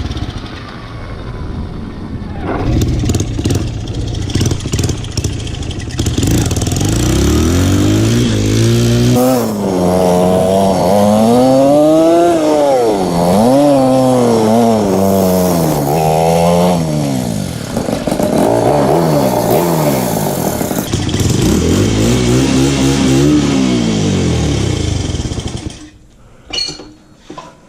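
Honda dirt bike engine running and being revved up and back down several times, its exhaust sealed with no leak or rattle. The sound drops away abruptly near the end.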